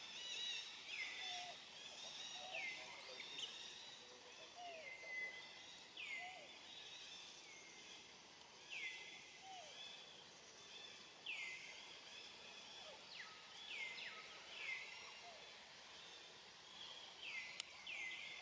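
A bird repeats a short, falling call about every second, over a steady faint background, with one sharp click near the end.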